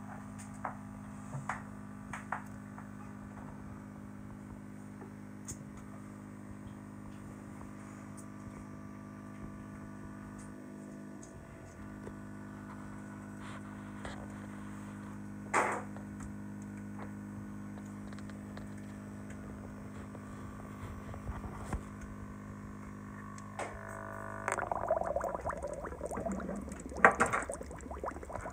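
Steady hum of a small motor, made of several steady tones, with a few faint clicks and taps. About 24 seconds in, part of the hum drops out and louder, uneven sounds take over.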